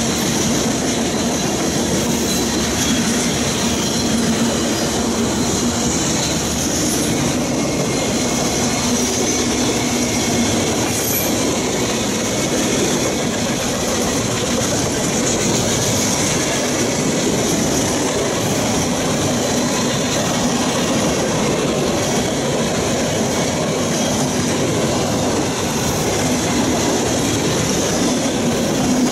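Freight train cars rolling past at close range: a steady rumble and clatter of steel wheels on the rails, with a steady high wheel squeal over it.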